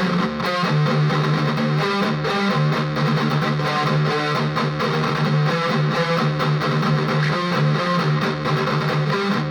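High-gain distorted electric guitar played through the Flamma FS06 preamp's amp simulation, boosted by a Joyo overdrive pedal, playing a fast, tightly picked riff.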